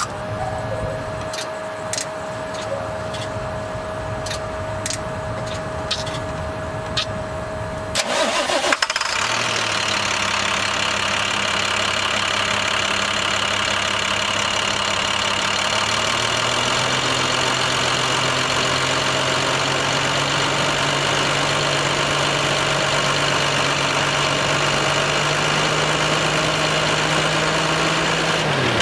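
A steady high tone with a few sharp clicks, then about eight seconds in the International MaxxForce DT inline-six diesel cranks briefly, fires and settles into a steady idle. Its idle pitch steps up slightly partway through.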